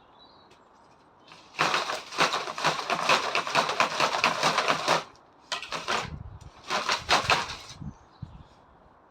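Rough crunching and scraping noise full of rapid clicks, in three bursts: a long one of about three seconds, then two shorter ones.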